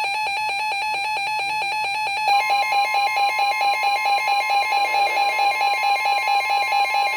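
Weather radio alert alarms: rapid, evenly repeating electronic beeps in several tones. About two seconds in, a steady single tone near 1 kHz joins them; this is typical of the NOAA Weather Radio 1050 Hz warning alarm tone that comes before a severe thunderstorm warning.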